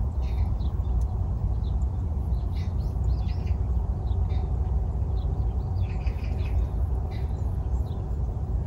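Small birds chirping in many short, scattered calls over a steady low rumble.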